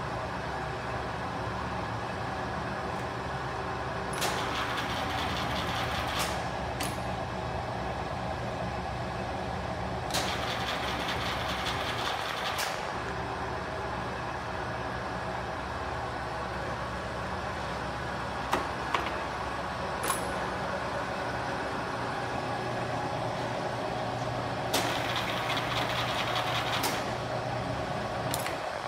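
1992 Kingston HRC24100 heavy-duty gap-bed engine lathe running: a steady low hum from the motor and headstock gearing. Three times it swells into a louder, hissier whirr lasting two or three seconds, and a few sharp clicks come about two-thirds of the way through and again near the end.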